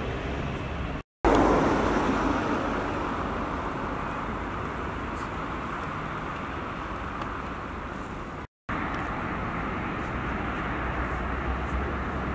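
Outdoor street ambience with steady road traffic noise, louder just after a brief dropout near the start and then easing down. The sound cuts out briefly twice where the footage is edited.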